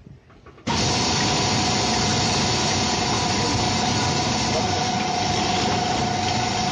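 Homemade copper-wire stripping machine for e-bike motor stators running: its motor-driven cutting disc gives a loud, steady whine with a steady noise underneath, starting abruptly about a second in.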